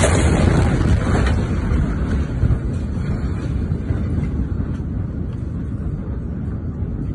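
Low, heavy rumbling roar of a large nitrate-warehouse explosion just after its shockwave has struck, with strong buffeting on the phone's microphone, slowly dying down.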